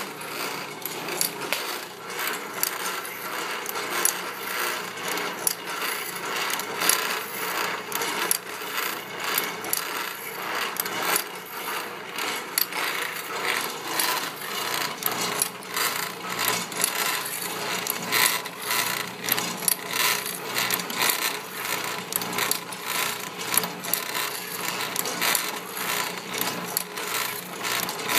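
Foley Belsaw SF1000 automatic saw sharpener running, its feed pawl indexing a circular saw blade tooth by tooth with a steady, rhythmic mechanical clatter.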